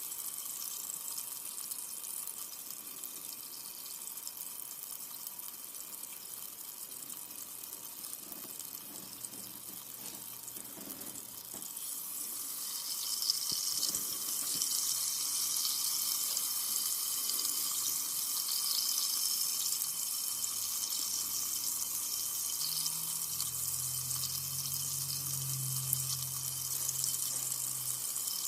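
Carbonated soda fizzing: a steady hiss of many tiny popping bubbles that grows louder about twelve seconds in.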